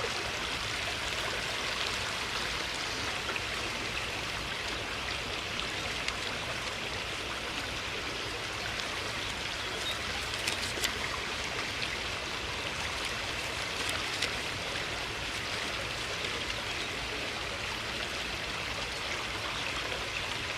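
Steady rush of running water, with a few faint clicks about ten seconds in.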